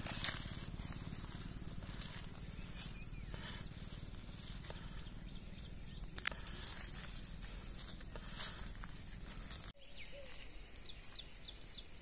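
Hands squeezing and mashing damp, crumbly bait dough on a plastic sack, giving short rustling, crinkling noises over a low steady rumble. The sound cuts off about ten seconds in, and faint bird chirps follow near the end.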